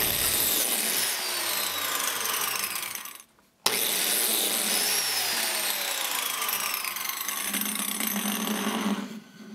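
DeWalt biscuit joiner cutting two biscuit slots in the edge of a plywood gusset. Its whine falls in pitch during each of two runs, split by an abrupt break about three seconds in, and stops shortly before the end.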